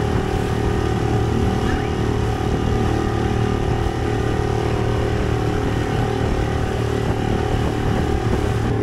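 Small outboard motor on an aluminium dinghy running at a steady pitch under way, with water rushing and splashing past the hull.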